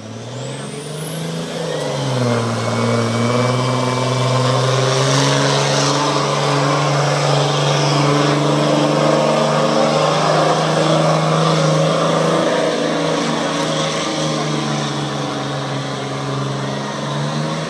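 2004 Dodge Ram's 5.9-litre Cummins inline-six turbodiesel pulling a sled at full load, with a high whistle climbing at the launch. The engine rises in pitch at the start, dips briefly about two seconds in, then holds a steady high-revving drone, settling a little lower in pitch after about twelve seconds.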